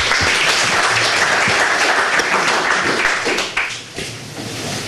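Audience applauding, thinning out about three and a half seconds in.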